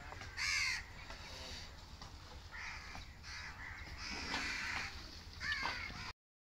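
Crows cawing: a loud caw about half a second in, followed by several fainter caws. The sound cuts off abruptly just before the end.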